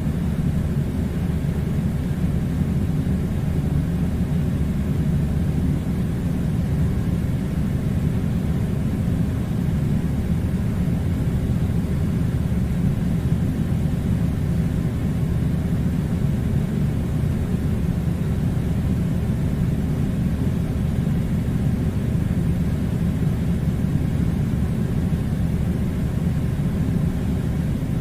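Air conditioner running: a steady low rumbling drone that never changes.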